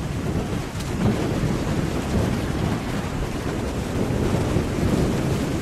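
Strong wind buffeting the microphone in a steady low rumble, over waves breaking and washing up in the surf.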